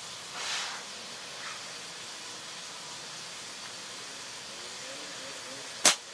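Flat-band slingshot firing a 6 mm steel ball: one sharp, loud snap of the Snipersling Army Green tapered bands and pouch on release near the end, over a steady outdoor hiss.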